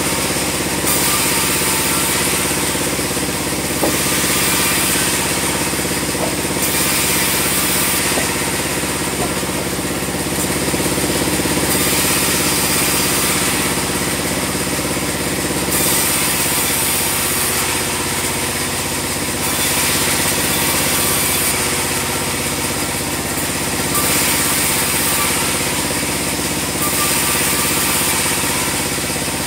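Bandsaw sawmill running steadily with a continuous engine-like hum, and a higher rushing noise that rises and falls every few seconds.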